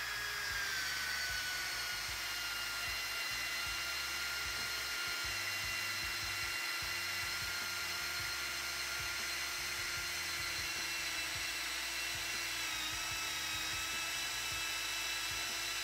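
Cordless drill running steadily under load as a multipurpose bullet-point drill bit bores into a pine log's end grain, the motor whining with the hiss of the bit grinding wood. The pitch sags slightly as the bit bites in. The grinding cut heats the wood until it smokes and scorches.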